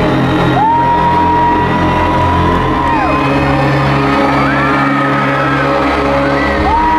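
Live pop concert music over an arena sound system, sustained held chords of a song's introduction, with fans screaming long rising, held cries close to the recording phone, starting about half a second in and again near the end.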